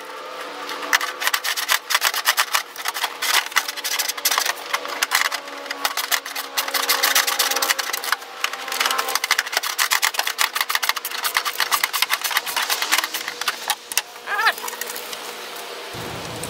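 Ratcheting wrench clicking in fast runs as nuts are worked onto the studs of a tailgate trim panel. There is a brief rising squeak near the end.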